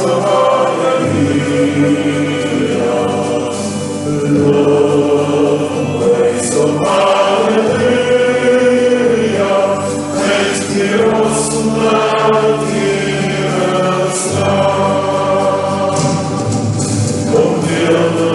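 A choir singing a slow worship song with instrumental accompaniment, the voices held over deep bass notes that change every few seconds.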